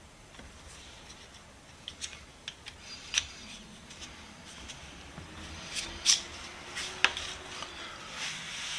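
Light metallic clicks and scraping from small parts being handled as a sliding T-bevel is reassembled and its nut fitted on the back. The clicks are irregular, with the sharpest about three and six seconds in.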